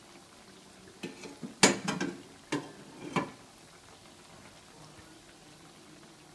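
Nuggets frying in a wok of hot oil with a faint, steady sizzle. A few sharp clanks of a utensil against the wok come between about one and three seconds in, as the nuggets are stirred and moved around.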